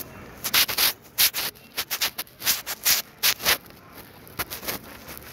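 Cloth rubbing and brushing close against the microphone: a run of short, irregular scratchy rustles, two or three a second.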